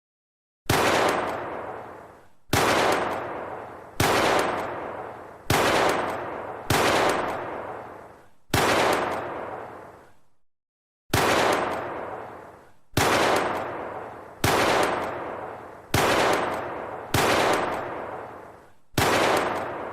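9mm pistol firing single shots, twelve in all, roughly one every one and a half to two seconds, each with a long echoing tail. They come in two runs of six, with a short silent pause about ten seconds in.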